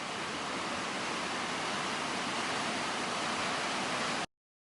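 Steady hiss that cuts off suddenly a little over four seconds in.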